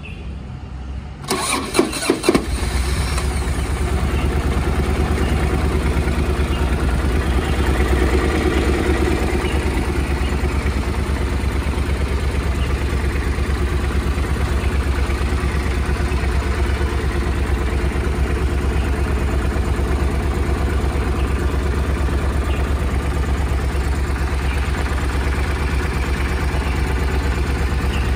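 Triumph Thunderbird LT 1700's 1,700 cc parallel-twin engine cranked on the starter and catching about a second and a half in, then settling into a steady idle.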